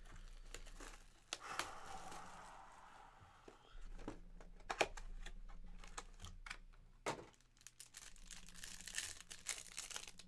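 Plastic shrink-wrap being torn off a mini box of Panini Absolute football cards and crumpled. It makes irregular crackles and clicks of plastic and cardboard, with a longer rustling tear about two seconds in.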